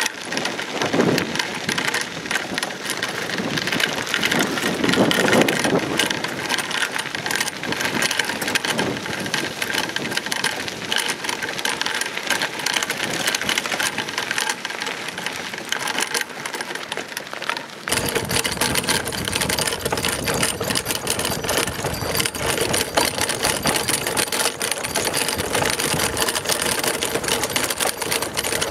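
Sacco dog cart rolling over a gravel and dirt trail behind a single pulling dog, its wheels and metal frame rattling with many small clicks. The sound changes suddenly about two-thirds of the way in.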